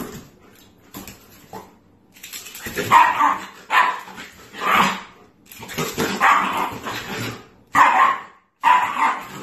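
Shiba Inu barking at a toy it dislikes, in a series of about six short, sharp barks and yips that start about two seconds in.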